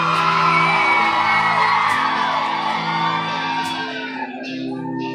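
Concert crowd screaming and whooping over a band's held guitar chords, the cheering fading somewhat near the end.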